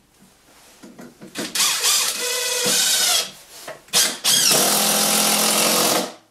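DeWalt DCF787 18V brushless impact driver running under load into a block of softwood in two bursts. The first, about a second and a half in, rises and falls in pitch. After a click, a steady run of about two seconds stops just before the end.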